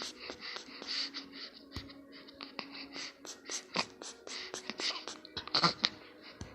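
A baby laughing breathily with the hiccups: a quick run of short, airy bursts of laughter broken now and then by sharp little catches.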